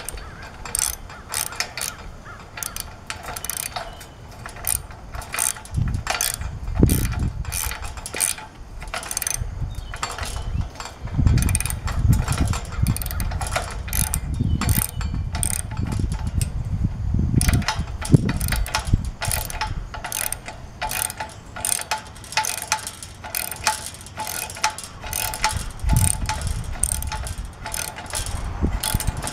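Socket ratchet wrench clicking in a quick, uneven run as it is swung back and forth, tightening the nut on a hinge carriage bolt.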